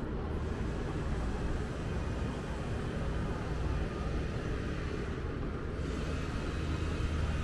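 Steady low rumble of outdoor city ambience, with no distinct events standing out.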